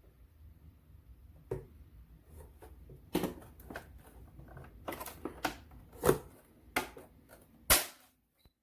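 A series of irregular clicks and knocks, like objects being handled, the loudest a sharp knock near the end, over a low hum that stops shortly after it.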